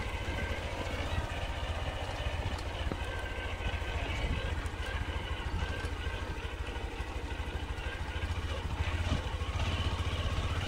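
Honda SP 125's single-cylinder 124 cc engine running steadily at low speed as the motorcycle is ridden over a rough dirt track.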